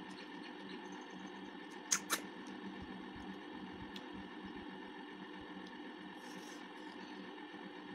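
Steady low room hum, with two quick sharp clicks about two seconds in as cooked snail shells are handled and eaten over the bowl, a small tick later, and a short soft hiss near the end.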